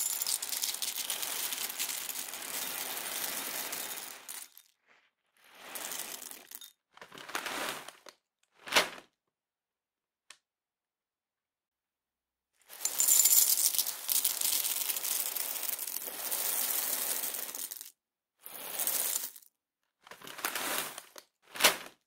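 Cornflakes poured into a bowl: two long pours of about four to five seconds each, each followed by a few short pours and ending in one sharp clatter.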